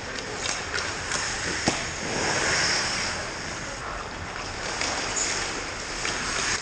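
Ice hockey rink sounds: skate blades scraping the ice, with sharp clacks of sticks and puck, the loudest about a second and a half in, followed by a swell of ice scraping.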